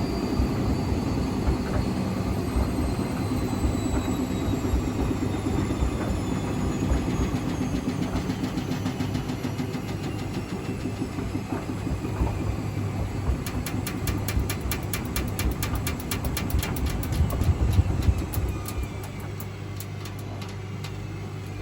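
Hotpoint Extra WMXTF942 washing machine winding down from a badly unbalanced rinse spin. The motor's whine falls steadily in pitch under a fast rhythmic thumping of the off-balance drum. Near the end a run of regular knocks slows down, and the sound drops away.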